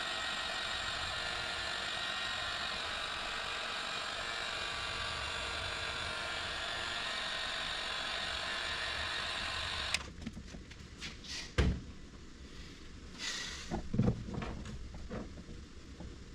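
Heat gun blowing steadily while shrinking heat-shrink tubing onto a wire at a spade connector; it cuts off suddenly about ten seconds in. A few light knocks and clicks of handling follow.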